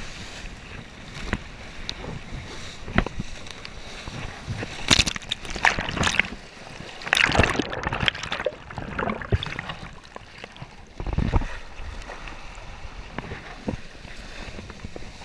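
Kiteboard skimming over choppy water: irregular sloshing and splashing of spray, heaviest between about five and nine seconds in.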